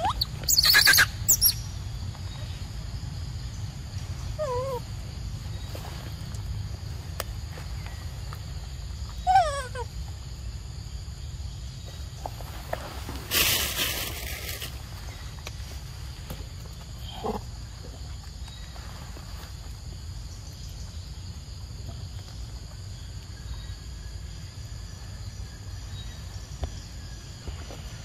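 Forest ambience: a steady high-pitched insect drone over a low rumble, with a few short animal calls that fall in pitch. Two loud, brief noises come about a second in and again about halfway through.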